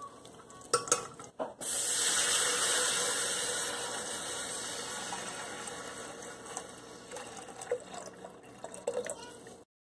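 A couple of sharp knocks as the pot is stirred, then water poured from a plastic bottle into an aluminium pressure cooker: a steady splashing pour that starts suddenly about a second and a half in, loudest at first and slowly easing off, with a few small clinks near the end.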